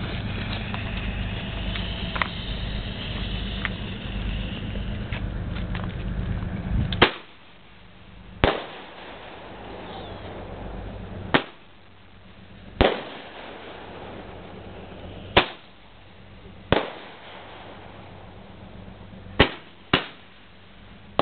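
Aerial fireworks bursting: eight sharp, separate bangs at irregular gaps of up to about three seconds, starting about a third of the way in. Before the first bang a steady low noise runs, then cuts off suddenly.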